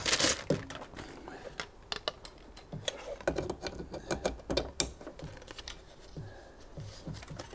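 Light, irregular clicks and taps of a CB radio unit and its cables being handled and offered up to the bare side panel of the car's rear load area, busiest in the middle.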